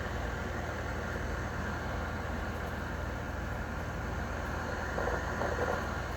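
Trane XE1000 5-ton heat pump outdoor unit running steadily, a constant low hum under an even rush of fan and compressor noise.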